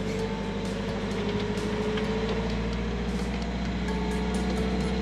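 Sailboat's Yanmar inboard diesel running steadily as the throttle is eased up from about 1500 toward 2000 RPM, its note rising slightly. It is a load test of new fuel hoses fitted to cure fuel starvation from a pinched, clogged fuel line.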